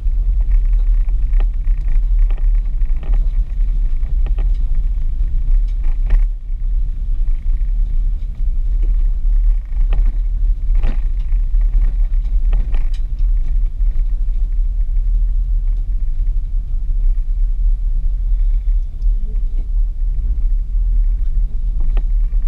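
Audi S4 engine running low and steady as the car rolls slowly, a deep rumble heard from inside the cabin, with a few scattered clicks and knocks.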